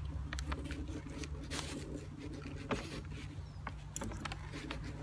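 Knife and fork cutting into a chicken shawarma in its paper wrapper: a few short scrapes, clicks and paper rustles, over a steady low hum.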